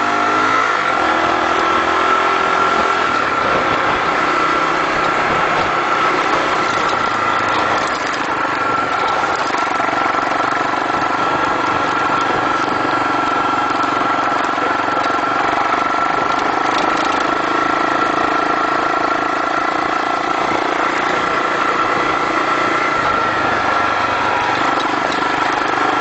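250cc Honda motorcycle engine running steadily while riding on a dirt road, mixed with wind and road noise and a steady high-pitched tone held throughout.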